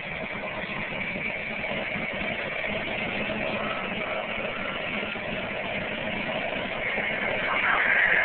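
Bell 206L LongRanger helicopter starting up: its turbine engine runs with a steady whine and the main rotor begins to turn, the sound growing gradually louder, with a louder rush near the end.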